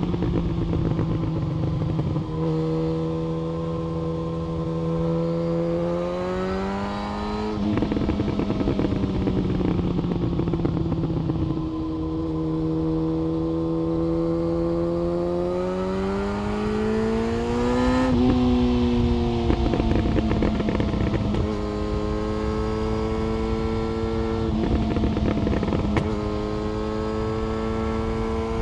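Yamaha FZ1 Fazer's inline-four engine and exhaust under way: the revs climb slowly and drop sharply several times as it shifts gear, with steadier cruising stretches between.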